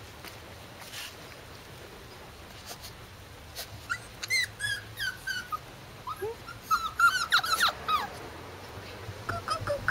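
Corgi puppies, about six weeks old, whining and yipping in short high-pitched cries. The cries start about four seconds in and come thickest, overlapping, near the end.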